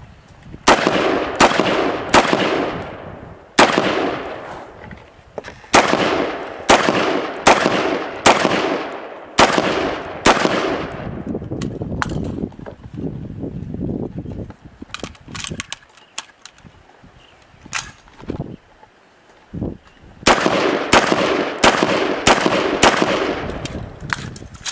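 AR-15-style rifle firing single shots in quick strings, about one shot every three-quarters of a second, each crack trailing off in an echo. There is a lull of several seconds in the middle with only a few faint knocks, then a final fast string of shots.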